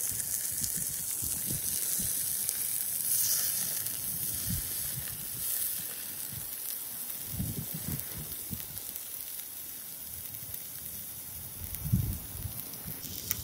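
Salmon fillets sizzling as they fry in butter in a small metal pan, with a few soft knocks as the fish and pan are handled, the loudest about twelve seconds in.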